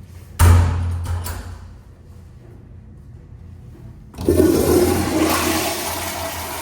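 American Standard toilet flushing. A sudden rush with sharp clicks comes about half a second in and dies away within a second and a half. A louder rush of water starts abruptly about four seconds in and slowly fades.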